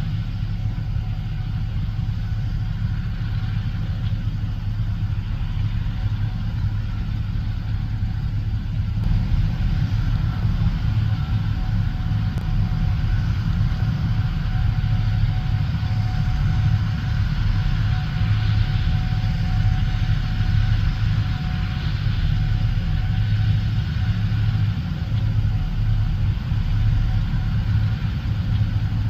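Gleaner S77 combine running steadily while harvesting corn, a continuous low drone. About nine seconds in it gets slightly louder and a faint steady whine joins it.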